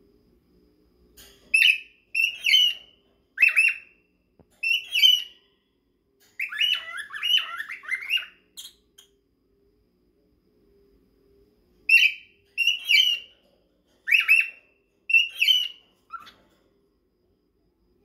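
Cockatiels calling in short, sharp chirps, mostly in pairs and threes. A fast run of chirps comes midway, then a pause of a few seconds before the calls start again.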